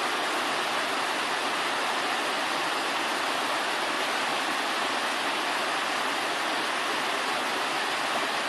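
Steady rush of river water tumbling over rocky rapids.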